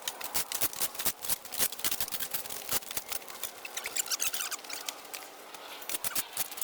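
Hand pruning shears snipping through overgrown brush: a run of irregular sharp clicks and crackles, several a second, easing off for a moment about five seconds in.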